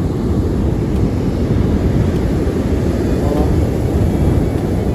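Steady rumble of wind buffeting the microphone over surf breaking on the beach.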